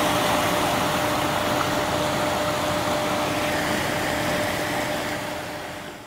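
Steady rushing of turbulent water churning past a concrete weir pier, with a faint steady hum underneath. It fades out near the end.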